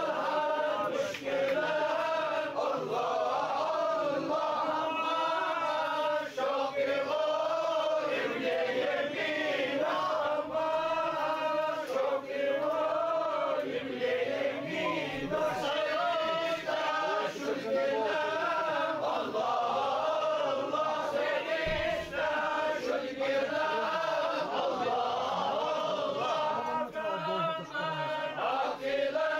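A group of men chanting Sufi devotional verses together without a break, each line closing on the refrain 'Allah Allah'.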